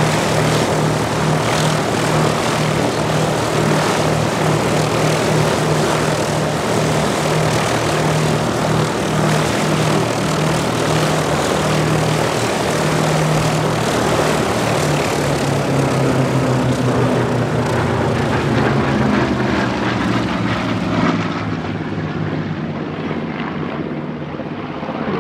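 Curtiss P-40 Warhawk and P-36/Hawk 75 piston-engine fighters flying overhead in formation: a loud, steady propeller and engine drone. About two-thirds of the way through the engine note drops in pitch as the aircraft pass, then the sound eases off slightly.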